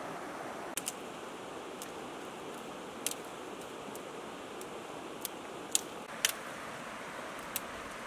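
Dry twigs and grass stems snapping as they are broken by hand: about eight sharp, crisp snaps at irregular intervals, the loudest a little past the middle. They sound over the steady rush of a river.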